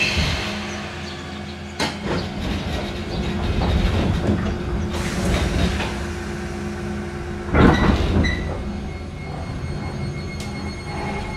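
The double sliding doors of an Iyo Railway 3000 series electric train close with a knock and a running slide. About eight seconds in comes a loud burst of air, followed by a steady high whine as the train gets under way.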